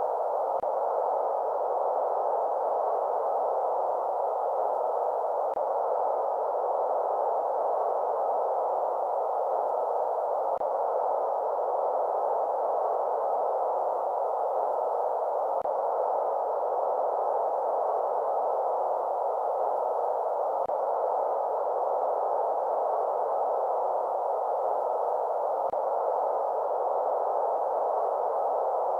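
Steady synthetic white noise, filtered so that only a mid-range hiss is left, with no deep rumble and no bright top. It runs unchanged, with a faint tick about every five seconds.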